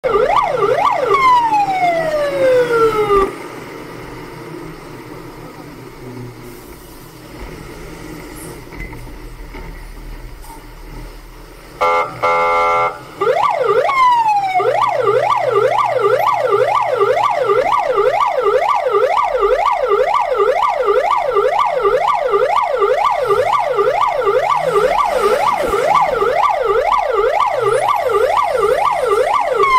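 Fire truck's electronic siren. A few quick sweeps and a long falling glide cut off about three seconds in, leaving the lower sound of the running vehicle. A short, two-part honk comes around twelve seconds, then a steady fast yelp rises and falls about one and a half times a second.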